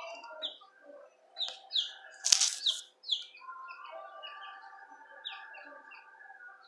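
Newly hatched chicks peeping in a brooder: many short, high, falling peeps, with a brief loud scuffling noise about two seconds in.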